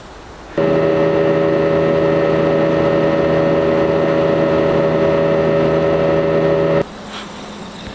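Small motorboat's engine running at a steady cruising speed, one even drone. It starts abruptly about half a second in and cuts off suddenly near the end.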